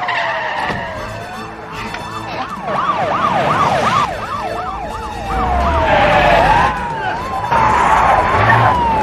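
Several police car sirens sounding at once, their overlapping tones sweeping up and down, some slowly and some in quick yelps, over the low running of car engines. A couple of louder rushing bursts of noise come in the second half.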